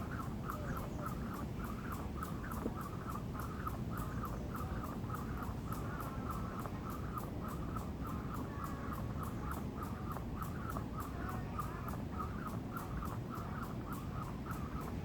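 Jump rope spun through double unders, the rope whipping and slapping the floor in a fast, even rhythm.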